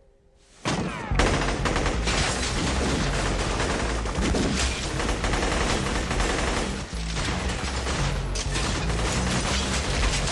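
Near silence, then about half a second in a sudden loud, dense barrage of rapid gunfire mixed with music, running on without a break.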